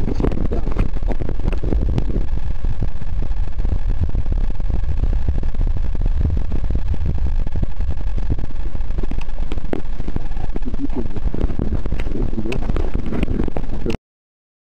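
Muffled low rumble with frequent crackles and knocks from a camera microphone plunged in the water: water noise and handling noise. It cuts off abruptly near the end.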